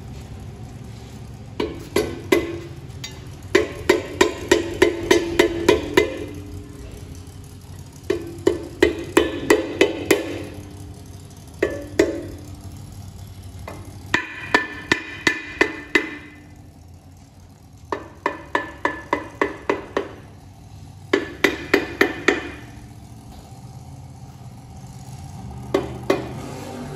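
Hammer tapping an aluminium intake manifold down onto a small-block Ford V8 to seat it, in runs of quick blows about four a second with short pauses between runs. Each blow leaves a brief metallic ring.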